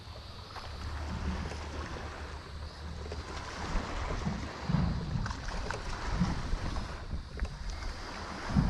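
Wind buffeting the microphone in uneven gusts, over the soft wash of water around a small skiff.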